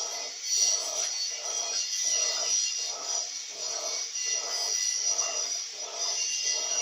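Electrolux LAC 16 top-loading washing machine agitating a duvet in water on its duvet wash program: a rhythmic swishing that repeats about two and a half times a second, over a steady high-pitched whine.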